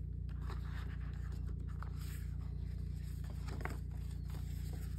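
Paper and card rustling and light scraping as a folded printed instruction booklet is handled and turned over on a table, a few louder rustles around the middle, over a steady low hum.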